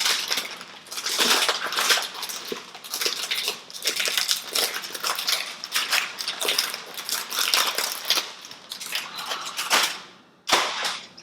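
Packaging being unwrapped by hand: a dense, irregular crinkling and tearing crackle that keeps going, dropping off briefly near the end before one last short burst.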